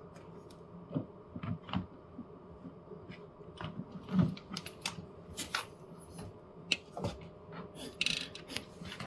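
Scattered light clicks, taps and scrapes, with a brief rustle about eight seconds in, as a cat in a plastic cone collar shuffles about on a wooden shelf, its cone bumping and rubbing against the furniture.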